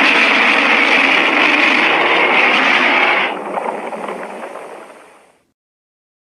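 Giant-ape monster sound effect for King Kong: one loud, harsh, noisy call that starts suddenly, holds for about three seconds, then fades away over the next two.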